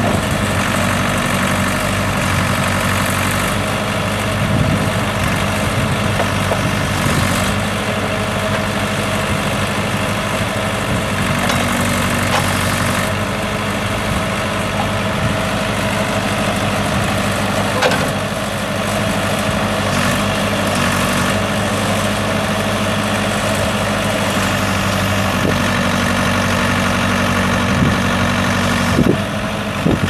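Case 580C backhoe's four-cylinder diesel engine running steadily while the backhoe arm is worked, its note shifting slightly a couple of times. A couple of sharp knocks are heard, one mid-way and one near the end.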